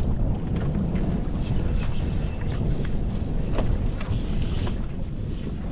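Steady low rumble of a fishing boat on the water, wind and water noise without a clear engine note, with a few light knocks.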